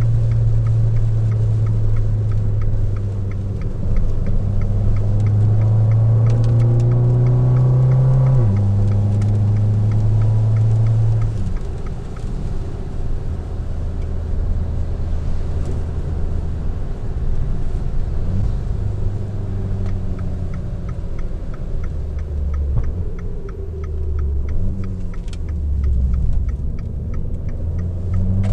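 Fiat 500 Abarth's turbocharged 1.4-litre four-cylinder engine and exhaust under way: the engine note climbs steadily under acceleration for about eight seconds, drops sharply at an upshift, then settles into a lower, uneven drone as the car cruises.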